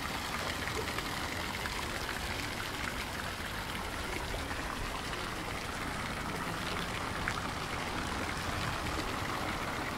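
Fountain jets splashing steadily into a stone basin pond, a continuous patter and trickle of falling water.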